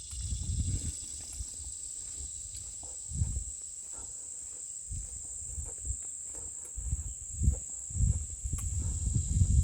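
A chorus of insects keeps up a steady, high-pitched trill, with irregular low thumps over it.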